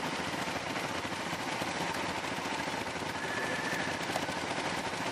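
ATV engine running with a rapid, even pulsing beat while the quad sits bogged in deep snow.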